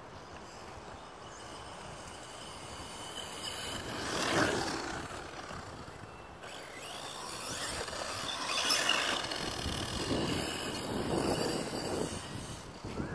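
Redcat Blackout XTE electric RC monster truck running on a 3S battery with a 20-tooth pinion: its motor and gears whine, rising and falling in pitch as it speeds up and slows. The whine swells loudest about four seconds in and again through the second half.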